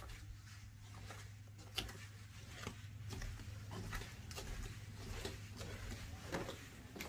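Footsteps walking through the house: a run of soft, irregular taps about two a second, with a sharper one about two seconds in and another near the end, over a steady low hum.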